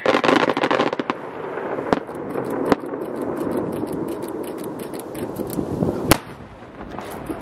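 Fireworks display: dense crackling of glittering stars, with sharp bangs of shells bursting about two, three and six seconds in.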